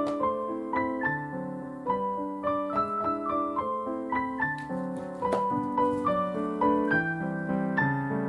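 Background piano music: a melody of single notes and chords played at an even pace.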